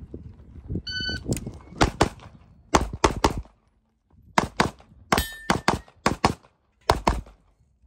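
Shot timer's start beep about a second in, then more than a dozen pistol shots fired in quick pairs and triples with short pauses between strings, as a USPSA stage is shot.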